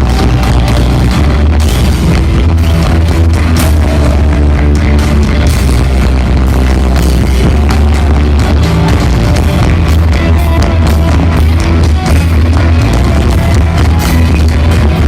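Rock band playing loud, with a heavy bass line and a driving drum beat.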